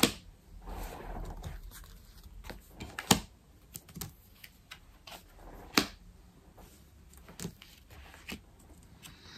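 Oracle cards being handled and laid out on a table: a soft sliding rustle, then scattered light taps and clicks as cards are set down.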